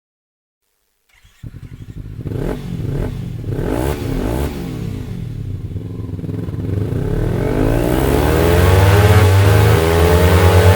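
Kawasaki Ninja 300's parallel-twin engine through its exhaust. After about a second of silence it catches and idles, is blipped in several short revs, then revs up in one long rise that grows steadily louder.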